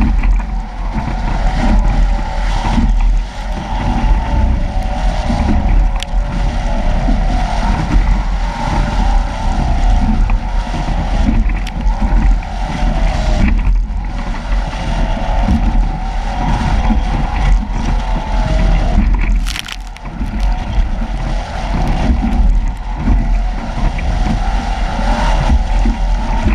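Strong wind buffeting the microphone and water rushing along a Nacra 17 catamaran as it sails fast through big waves in about 32 knots of wind. There is one sharp hit about 19 seconds in, after a short lull.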